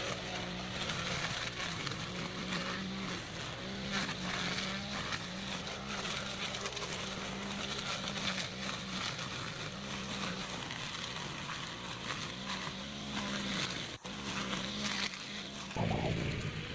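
Petrol brush cutter running steadily at cutting speed while mowing dense grass and weeds, its engine note wavering slightly. The sound changes abruptly near the end.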